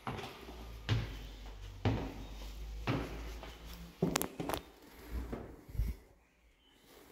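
A few footsteps about a second apart, then a built-in cupboard door is pulled open about four seconds in, its catch giving two sharp clicks.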